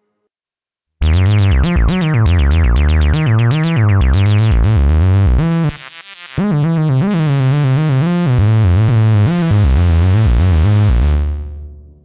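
Tone2 Saurus 3 software synthesizer playing its arpeggiated analog-style preset 'Analogx MF': a fast run of repeating notes over a stepping bass line. It starts about a second in, breaks off briefly around the middle, and fades out near the end.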